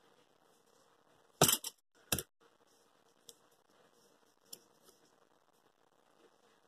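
Two sharp knocks about a second and a half and two seconds in, as the plastic glue bottle is put down on the table, then a few faint ticks of cardboard toilet-paper-roll pieces being handled.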